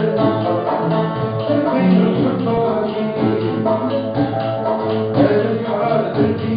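Algerian chaabi ensemble playing, with rapid plucked notes from the banjos and mandole to the fore over steady accompaniment.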